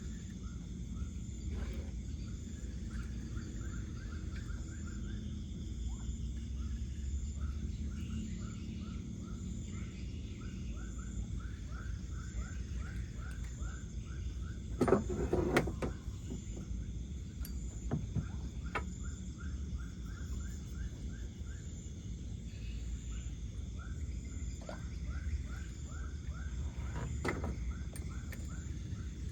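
Night chorus of insects: a steady high trill and a short chirp repeated a few times a second, over a low steady background rumble. About fifteen seconds in, a brief cluster of knocks stands out loudest.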